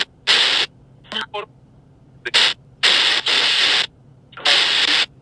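Sono X10 Spirit Box Pro phone app sweeping through frequencies, giving choppy bursts of hissing static, each under about a second, broken by short silences, with a couple of brief clipped fragments about a second in. It is a spirit box sweep, in which ghost hunters listen for voices answering their questions.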